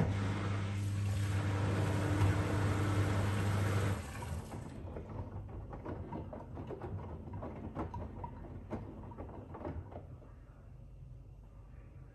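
Grundig FIBERCatcher front-loading washing machine: the drain pump hums steadily with water rushing for about four seconds, then cuts off suddenly. After that the drum turns slowly, the wet, soapy laundry sloshing with soft splashes and light knocks.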